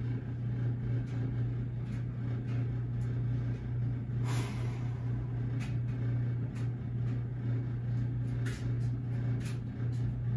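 Steady low hum of room tone, with a few faint, brief sounds of movement.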